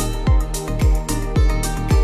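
Background music with a steady kick-drum beat about twice a second, bright cymbal-like hits between the kicks and sustained chords.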